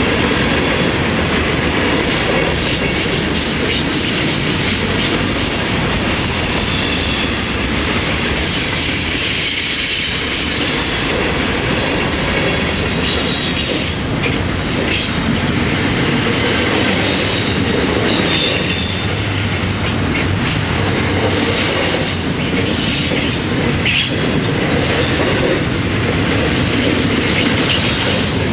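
Florida East Coast Railway freight train cars rolling past: hopper cars, then double-stack container well cars. Steady rumble of wheels on rail, with clacking over the rail joints and thin, high wheel squeals now and then.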